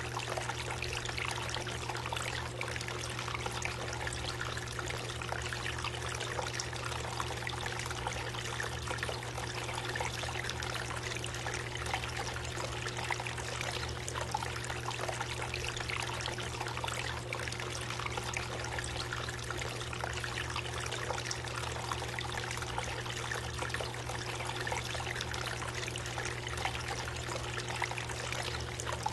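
Water trickling steadily down the tiers of a five-tier faux-tree-trunk garden fountain, with a steady low hum underneath.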